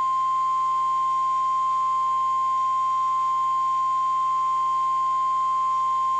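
NOAA Weather Radio 1050 Hz warning alarm tone: a single steady pure tone held without a break. It is the alarm signal that switches on specially equipped weather alert receivers, sent here as a routine weekly test.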